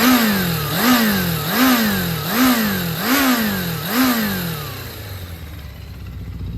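Suzuki GSX400 Impulse inline-four engine being revved in six quick throttle blips, about one every 0.8 s, each pitch rise falling straight back, then settling to a steady idle about four and a half seconds in. The seller lists the engine as running with no abnormal noise.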